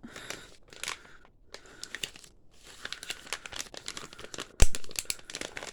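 A small plastic bag crinkling and rustling as an item is packed back into it, with one sharp knock about two-thirds of the way through.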